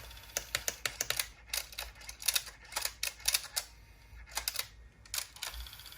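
Rapid, irregular mechanical clicking from an Aiwa HS-PX303 cassette walkman's mechanism, cycling on its own as soon as a battery is put in, with a short pause a little past the middle: the faulty player is misbehaving and will not stop.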